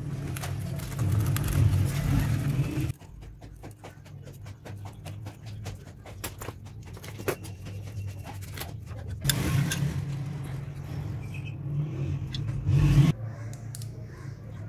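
Scissors cutting through waterproof silicon carbide sandpaper: a rough scraping crunch in two stretches of a few seconds each that stop abruptly, with light clicks and handling taps between them.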